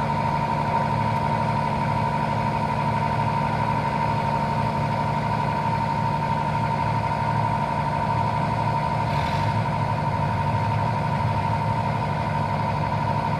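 Hydraulic excavator's diesel engine running steadily, with a constant high whine over the low engine drone.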